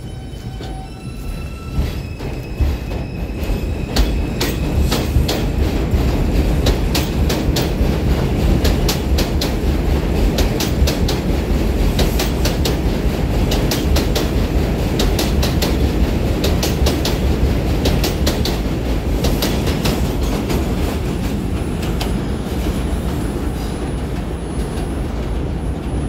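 R142 subway train pulling out: its propulsion motors give a few short stepped whining tones as it starts, then a loud steady rumble sets in with wheels clicking over the rail joints. The clicks come thick and fast from about four seconds in as it gathers speed, and they thin out near the end as the train moves away.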